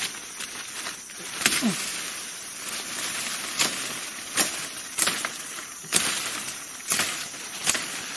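Chopping strokes of a blade cutting into a woody stem in undergrowth: about seven sharp cuts at uneven intervals, roughly one a second.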